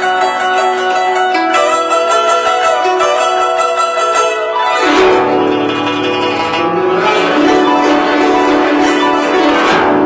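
Guzheng being played: quick plucked notes, then a sweeping glissando across the strings about five seconds in, followed by dense, rapid plucking.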